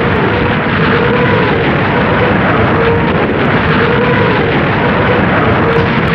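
WW2 truck-mounted Katyusha multiple rocket launcher firing a salvo: a continuous loud roar of rocket motors, with a wavering howl that rises and falls about once a second.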